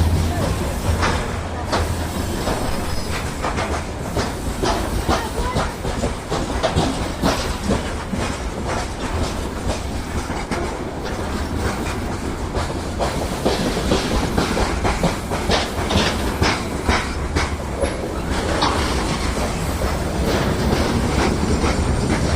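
A train hauled by a VL10 electric locomotive passing, its wheels clattering continuously over the rail joints.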